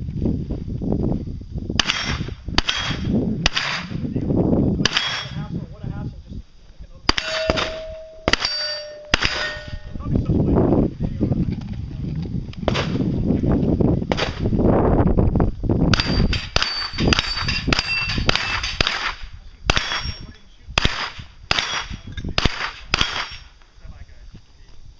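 Gunfire at steel targets: many sharp shots, several fired in quick strings about two-thirds of the way through, with the struck steel plates clanging and ringing after the hits.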